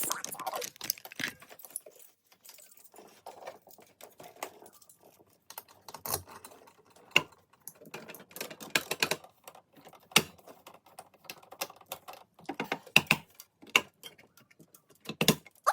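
Irregular small clicks, taps and rattles of hands handling a fire alarm device and its wiring during rewiring, with a few sharper clicks in short clusters.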